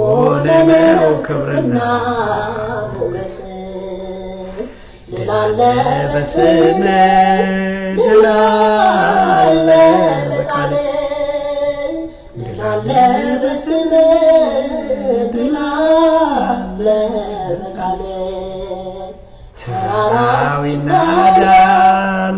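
A man's voice chanting a hymn solo, in long held, wavering notes sung in phrases of about seven seconds with short breaths between them.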